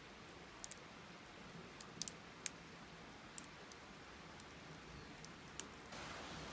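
Dead-pine Swedish torch fire crackling faintly: irregular sharp pops and snaps over a soft hiss.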